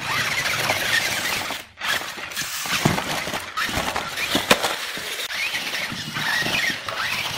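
The ZIGO TECH 1:16 RC climbing car's small electric motor and gearbox whining as it crawls up rock, the pitch rising and falling with the throttle. A couple of sharp knocks come near the middle as the tyres hit the rock.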